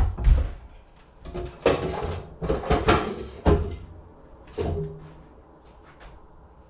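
A run of knocks and clatters of hard objects being handled and set down, loudest at the very start and thinning out after about five seconds, leaving a faint steady hum.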